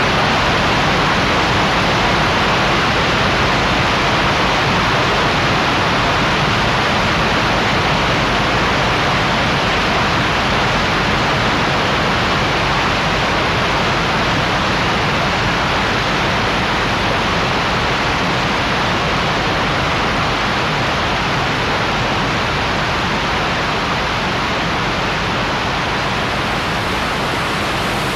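Steady rush of a mountain waterfall, falling water in a dense even roar that eases slightly near the end.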